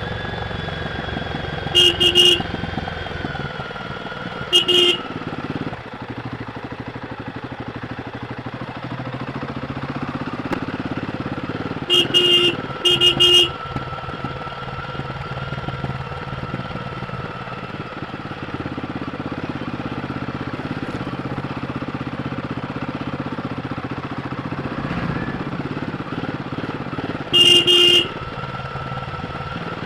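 Royal Enfield Guerrilla 450's single-cylinder engine running on its stock exhaust while riding, its pitch drifting slowly with throttle. Short horn beeps cut in several times, in quick clusters near the start, around the middle and near the end.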